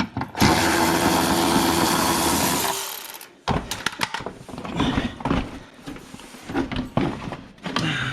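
Power drill spinning steadily for about two and a half seconds, then stopping, followed by a few seconds of scattered knocks and clatter from handling parts.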